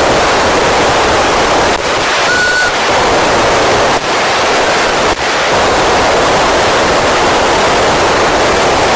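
Steady, loud hiss of FM receiver noise from the Icom ID-5100 transceiver's speaker on the AO-27 satellite downlink, with no station heard. A short whistle sounds about two and a half seconds in, and the hiss briefly cuts out three times.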